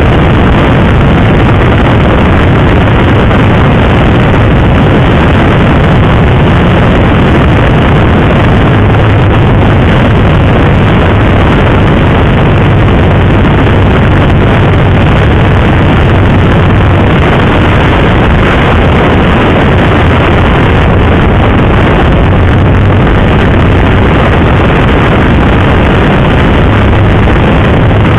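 Sport motorcycle, a KTM RC 390 single-cylinder, running at a steady road speed, with heavy wind rush over the helmet microphone. The engine note holds steady, with no big revs or gear changes.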